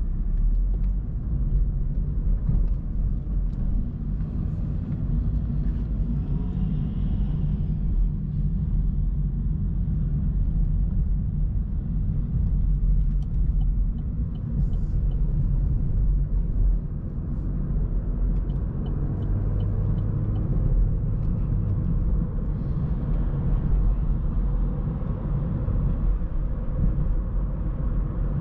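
Inside the cabin of a 2017 Opel Astra K with a 1.4-litre turbocharged four-cylinder petrol engine while driving: a steady low engine and road rumble as the car moves from a roundabout up to open-road speed.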